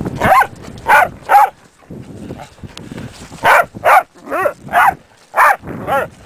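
A dog barking excitedly in short, sharp barks, about nine in all, the busiest run coming in the second half, with wind buffeting the microphone between barks.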